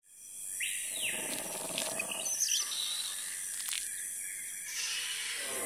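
Produced jungle soundscape of bird calls and chirps over a steady hiss, fading in at the start.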